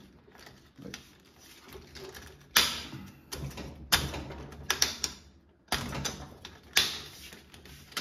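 Several sharp clicks and knocks as a cover is pressed and fitted onto a rack-mounted horizontal cable manager, with light rustling between them; the loudest click comes about two and a half seconds in.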